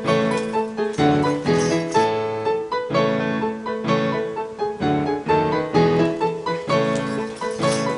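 Background music: a piano tune played in an even, bouncy rhythm.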